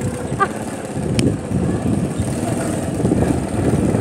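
A vehicle's engine running while moving along a rough road, with steady low rumbling road noise and a single short click about a second in.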